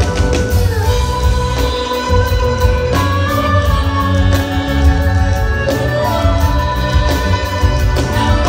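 Live ensemble of Chinese bowed fiddles of the erhu family playing a campus folk song medley, sustained melody notes over a drum kit and bass keeping a steady beat.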